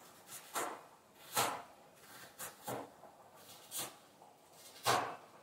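Kitchen knife striking a cutting board in slow, irregular cuts: about seven separate sharp knocks.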